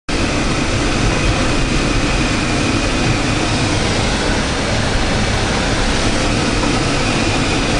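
Steady road and engine noise inside a moving RV's cab at cruising speed: tyres rolling on the pavement and the engine running, without letup.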